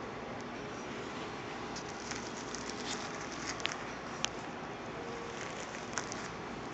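Steady hiss of room background noise, with a few sharp light clicks and rustles scattered through the middle and near the end.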